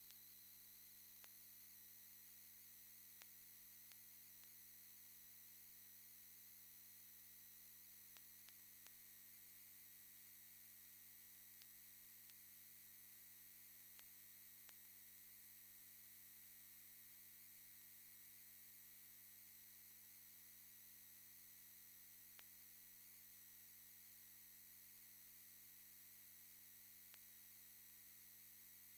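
Near silence: a steady electrical hum and hiss, with a few faint scattered clicks.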